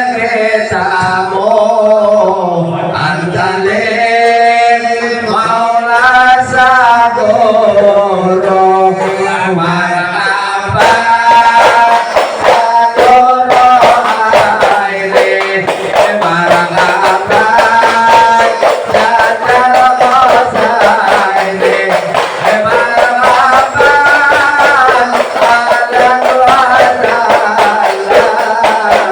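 Sholawat, an Islamic devotional song, sung melodically by a male voice with rhythmic accompaniment; the beat grows denser and fuller about eleven seconds in.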